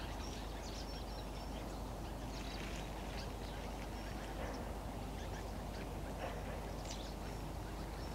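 Faint scattered bird calls, ducks quacking among them, over a steady low background hum.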